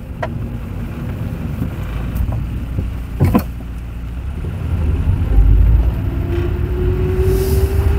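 Toyota car with a robotized five-speed gearbox running under way: steady low drivetrain rumble, then a rising whine from about six seconds in as it speeds up. A single sharp knock a little over three seconds in, from a gearbox whose third gear knocks.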